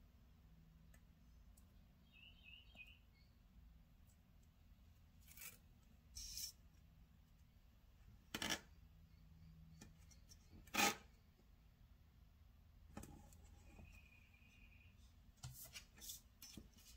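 Mostly quiet handling of a disc-bound planner page and a roll of washi tape: a few short, sharp snaps and rustles, the two loudest about eight and a half and eleven seconds in.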